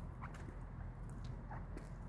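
Footsteps on wet pavement: a few short steps over a steady low rumble.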